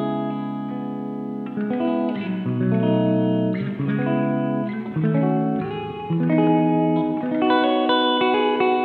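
Semi-hollow electric guitar played through the spring reverb mode of a Donner Verb Square pedal. Chords and single notes change about once a second, each left to ring out into the reverb.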